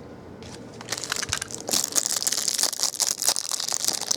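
Plastic wrapping on a trading-card pack being crumpled and torn open. It is a dense, crackly crinkling that starts about a second in and carries on.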